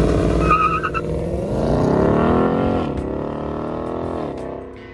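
Ford Mustang's naturally aspirated 5.0-litre V8 at full throttle on a launch from standstill. The engine note climbs, drops sharply at a gear change about three seconds in, climbs again, then fades as the car pulls away.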